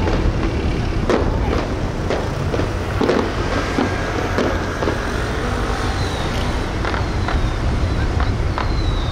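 Fishing boat engines running with a steady low rumble, with scattered sharp cracks every second or so.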